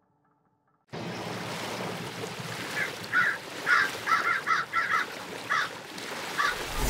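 A steady rushing noise starting about a second in, with a string of short bird calls, about nine in quick succession, through the middle.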